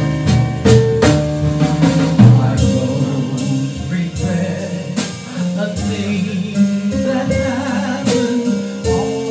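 Live small-band ballad: a male vocalist singing into a microphone over keyboard and a drum kit with cymbal strokes.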